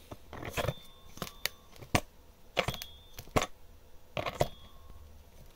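A steel Morse taper drill shank being handled and set into a 3D-printed plastic sleeve in a wooden board: a series of separate sharp knocks and clinks, a few with a brief metallic ring.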